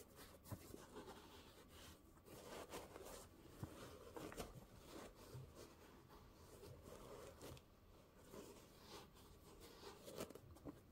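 Faint, irregular rustling and light scratching with small clicks: hands handling a new pair of sneakers and their packaging.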